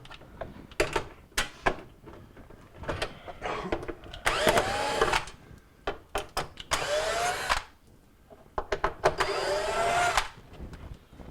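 A power drill-driver backing out Phillips screws from a microwave's metal top cover in three short runs, its motor whine rising in pitch as each run starts. Clicks and taps of metal handling come between the runs.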